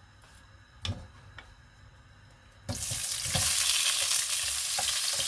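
A soft thump and a click, then about two and a half seconds in a sudden loud sizzle as sliced onions go into hot oil in a frying pan, sizzling steadily with a few knocks of the utensil.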